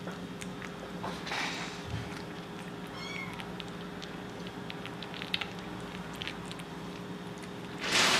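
Kitten eating wet cat food from a bowl: small wet clicks and smacks of chewing, with one short high mew about three seconds in. A loud rush of noise near the end, over a steady low hum.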